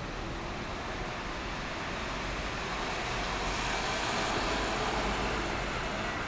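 A Meitetsu electric train running by: a steady rushing noise that swells and peaks about four seconds in.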